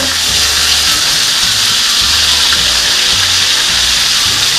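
Chicken pieces frying in oil in a skillet, a loud steady sizzle as they are turned over.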